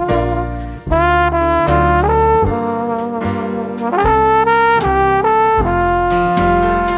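Background music: a brass-led melody over bass and a steady beat.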